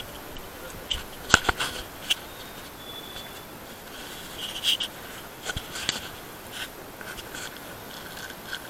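Handling noise on a hand-held action camera: scattered knocks, clicks and rubbing as it is turned and moved about.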